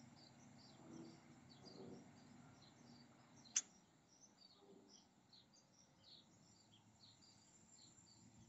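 Faint, busy chirping of small birds over a low background hum, with a single sharp click about three and a half seconds in.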